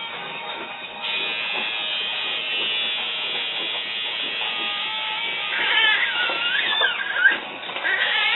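Electric tattoo machine buzzing steadily, getting louder about a second in. High wavering cries join it about six seconds in, with a sharp click just after.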